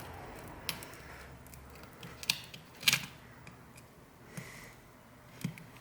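A thin metal pry tool clicking and tapping against the phone's cracked display glass and frame as it is worked around the edge of the screen: about five sharp clicks, the loudest about halfway through.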